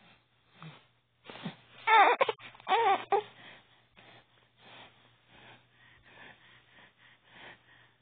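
Baby vocalizing: two loud, high-pitched vocal sounds about two and three seconds in, followed by a run of quick, faint breathy sounds about twice a second.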